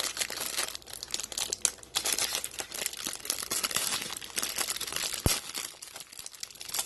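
Thin clear plastic wrapping crinkling and tearing as it is pulled open off a packaged sponge. A single sharp click about five seconds in.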